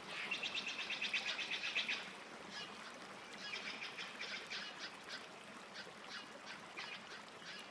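Animal calls: a rapid chattering trill for the first two seconds, then scattered shorter calls.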